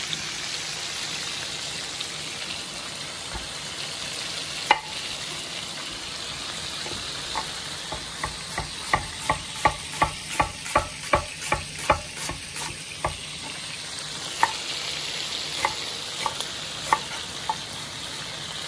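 Chicken back frying in oil in a pan with a steady sizzle, while a chef's knife slices red onion on a wooden cutting board. A sharp knock comes a few seconds in; in the middle a run of quick, even cuts comes about three a second, followed by a few single cuts.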